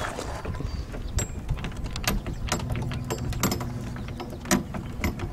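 Irregular small metal clicks and taps as a clevis pin is worked into a boat boom's gooseneck fitting by hand, over a low steady rumble.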